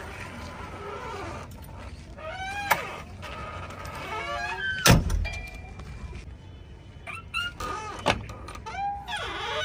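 JCB 3DX backhoe loader at work: a low engine rumble under a whine that rises and falls in pitch several times, with three sharp clanks, the loudest about five seconds in.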